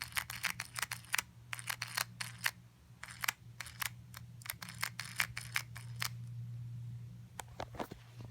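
Fidget clicker toy being clicked over and over: quick, irregular sharp clicks, several a second, that stop about six seconds in, with a few more clicks near the end.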